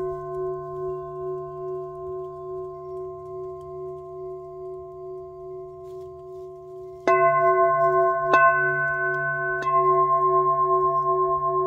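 Frosted quartz crystal singing bowl ringing on from a strike and slowly fading. About seven seconds in it is struck three times, a little over a second apart, and rings on louder. The tone carries a steady wavering pulse.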